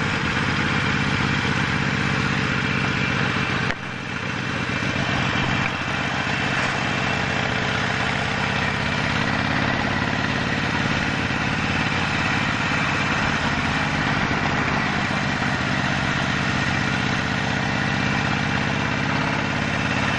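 Harley-Davidson Sportster 48's air-cooled V-twin running steadily, heard from the rider's helmet camera, with a brief drop in level about four seconds in.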